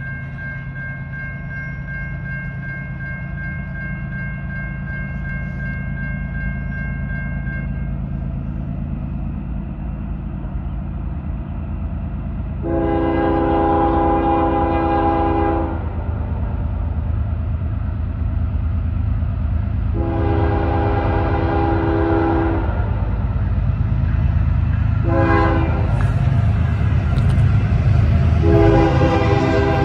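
Norfolk Southern freight train approaching, its diesel locomotive's horn sounding the grade-crossing signal: two long blasts, a short one, then a long one. Under the horn the locomotive's engine rumble grows steadily louder as the train nears. A steady high ringing tone is heard for the first eight seconds or so, then stops.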